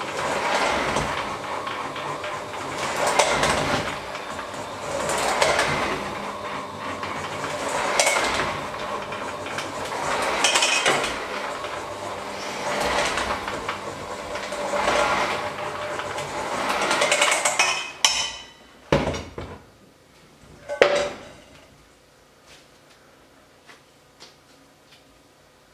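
Electric hand mixer with dough hooks running in a stainless steel bowl of dough, its motor noise swelling every two to three seconds as the hooks work the dough. It cuts off about two-thirds of the way through, followed by a few sharp knocks.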